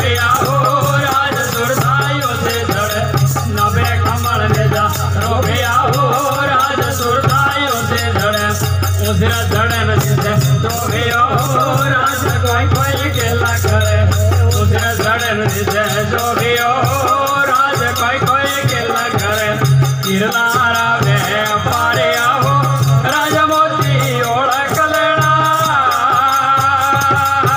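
Live folk devotional bhajan music: a wavering melody line over a low, pulsing beat, with a shaken rattle keeping time.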